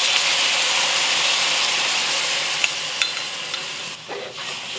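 Beef and garlic stir-frying in a hot wok with freshly added sauce sizzling hard, broken by a few light clicks of the spatula against the wok. The sizzle eases near the end.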